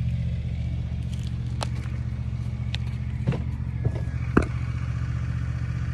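Lawnmower engine running steadily at a constant speed, with a few sharp knocks and clanks over it, the loudest about four and a half seconds in.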